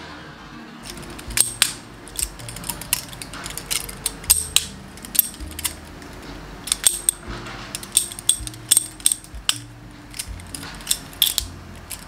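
Metal balisong (butterfly knife) being flipped and tossed: sharp metallic clicks and clacks as the handles swing shut and open against each other, coming irregularly, often several in quick succession.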